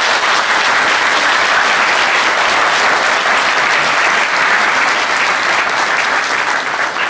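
An audience in a hall applauding, steady sustained clapping that begins to thin out near the end.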